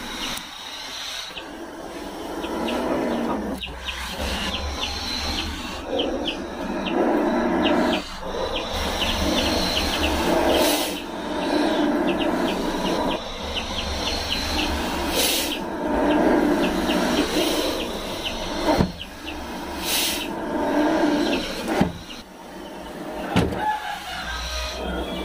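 Two king cobras growling at each other: repeated low, hissing growls, one every second or two. This is the rival snakes' threat display as they face off and fight.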